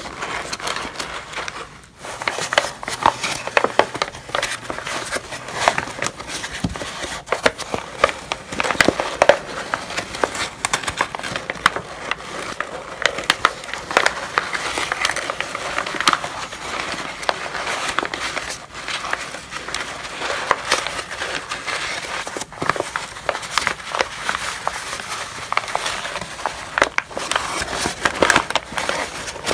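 Brown paper being crumpled and rustled by gloved hands, close up: a continuous crisp crackling full of sharp crinkles, with a brief lull about two seconds in.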